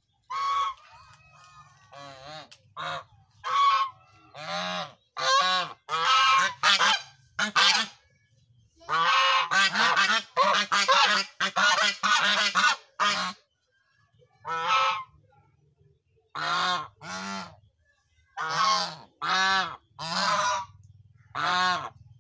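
Several white domestic geese honking repeatedly, loud calls one after another, with a fast unbroken run of honks in the middle.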